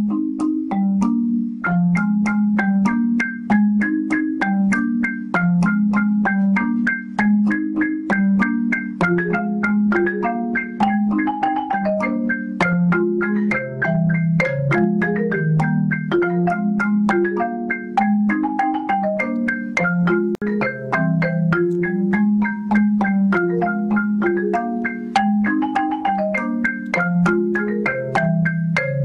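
Background music played on mallet percussion like a marimba: a steady, quick run of struck notes, a melody over a repeating bass line.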